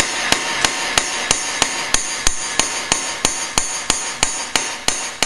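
Steel hammer peening a fresh TIG weld bead on an aluminium cylinder head: sharp metallic strikes at an even pace of about three a second, each ringing briefly. The hammering consolidates the welded aluminium to make it harder.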